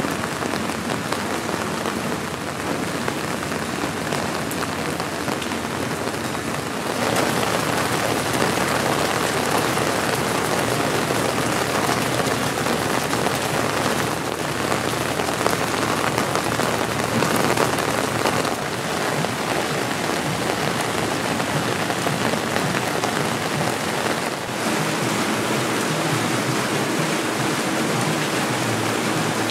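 Steady rain falling and splashing on wet paving stones and puddles in a street, a little louder from about seven seconds in.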